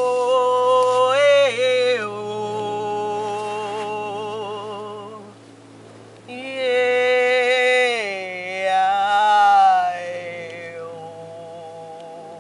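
A woman singing a slow ritual chant alone, holding long notes with vibrato; she breaks off briefly about five seconds in, then sings on.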